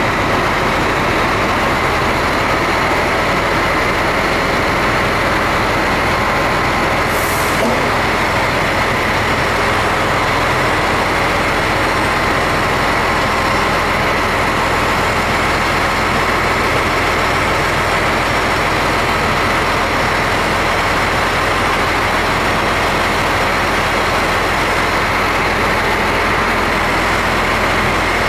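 Steady, even running of the heavy engine of the machine lifting the mixer upright, with no change in level throughout.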